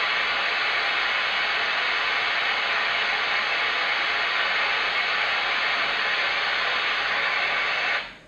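Three Sheep S1 sound machine playing a steady white-noise hiss. It cuts out briefly near the end and starts again.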